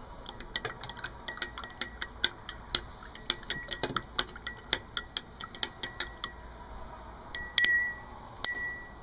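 A metal spoon stirring tea in a drinking glass, clinking against the glass in a quick, even run of light ticks, about three a second. Near the end come two louder, ringing clinks.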